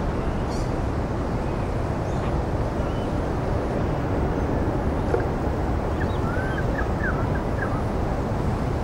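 Steady outdoor background noise with a low rumble, and a few short bird chirps about six to seven and a half seconds in.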